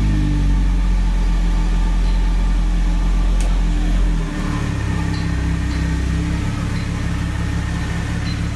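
Car engine running at low speed, with a change in its note about four seconds in as it settles to a steadier, lower-pitched run.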